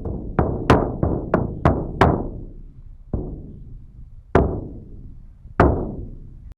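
Resonant drum-like knocks, each ringing away after the strike: about three a second at first, then slowing to single strikes more than a second apart, the last one near the end.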